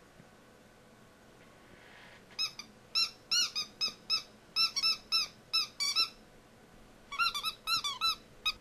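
Shih Tzu puppy whining in short, high-pitched whimpers, each rising and falling in pitch, begging to be let off the bed. A quick run of them starts about two and a half seconds in, pauses, then a second run comes near the end.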